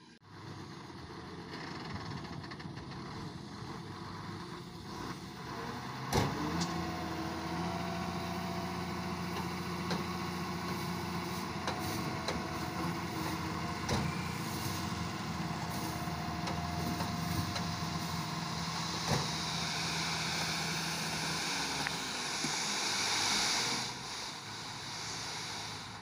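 Tipper dump truck's diesel engine running under load as the bed is raised and a load of dust slides off onto the heap. A steady engine note sets in after a sharp knock about six seconds in, and a loud hiss rises near the end.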